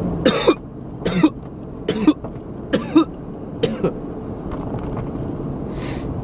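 A man's run of five quick, sharp hiccups a little under a second apart, ending about four seconds in.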